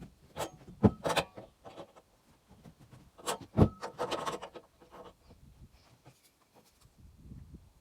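Scattered knocks and clicks with some scraping and rubbing; the sharpest knocks come about a second in and again about three and a half seconds in.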